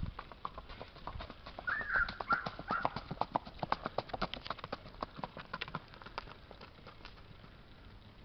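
Hoofbeats of a ridden mare on a dirt track: a quick run of clip-clops that grows louder as she passes and fades away after about seven seconds.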